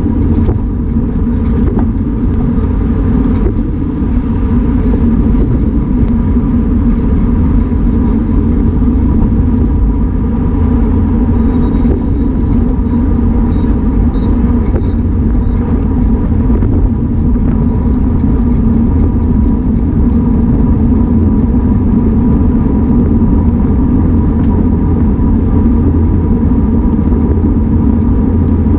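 Loud, steady wind rush on the microphone of a camera mounted on a road bike that is riding at race speed in a pack, a heavy low rumble with no breaks.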